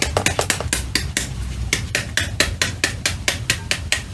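A metal spoon rapidly tapping the back of a halved pomegranate held over a strainer and glass bowl, knocking the arils loose. The taps come in a quick, steady run of about six a second.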